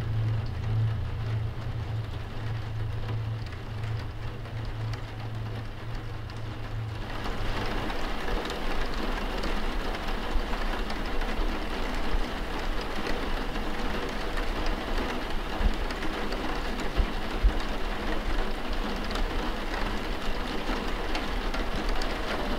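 A low steady drone fades out about seven seconds in as steady rain comes in, falling evenly with scattered drops pattering on a surface.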